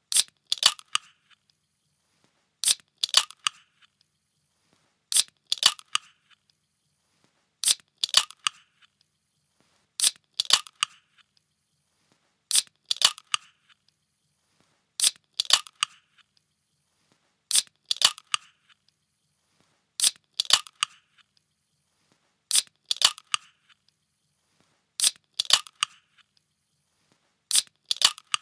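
A can being opened, the same short crack-and-snap repeated about every two and a half seconds, roughly a dozen times.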